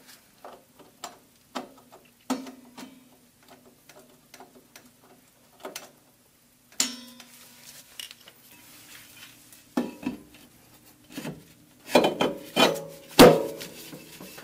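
Rear drum brake shoe adjuster being turned back with a screwdriver, a run of light metallic clicks about two or three a second; the shoes are being backed off because they were set too wide for the drum to go on. About ten seconds in, louder metal clanks and knocks as the steel brake drum is slid back onto the hub.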